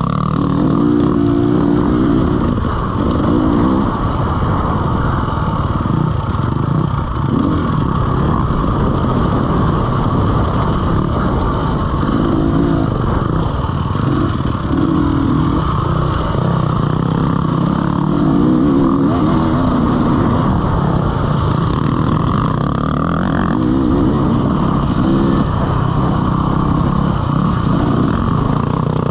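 A 2017 KTM EXC 300 two-stroke enduro motorcycle with a SmartCarb 2 carburettor, heard from on the bike while it is ridden on a dirt trail. The engine revs up and down over and over through the gears.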